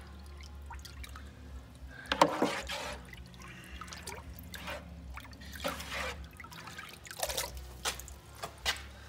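Hot water tipped from a pail into a plastic eel-holding tank, pouring and splashing in irregular bursts, the biggest splash about two seconds in, over a steady low hum.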